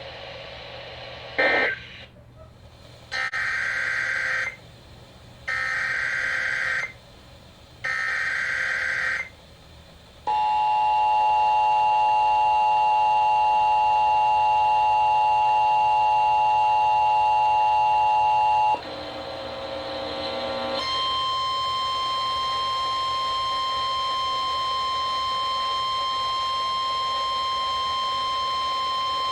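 Emergency Alert System alert: three short bursts of warbling digital header data, then a loud steady multi-tone attention signal for about eight seconds, and after a short break a single steady tone, the NOAA Weather Radio warning alarm tone. The sequence announces an incoming warning message, here a tornado warning.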